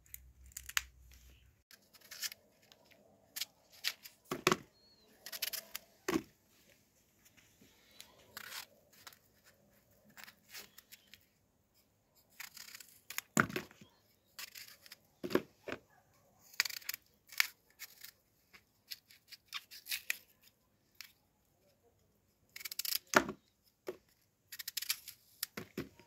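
Kitchen knife cutting small, firm apples into quarters: irregular crisp crunches and snaps as the blade goes through the fruit.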